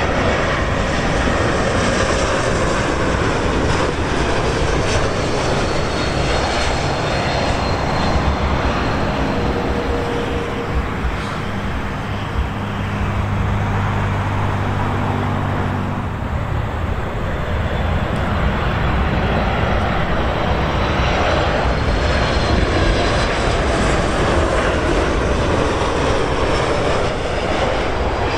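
Jet noise from an Airbus A220-300's Pratt & Whitney PW1500G geared turbofans as the airliner comes in on approach and lands: a loud, steady rushing roar. A low steady hum joins in for several seconds, starting about ten seconds in.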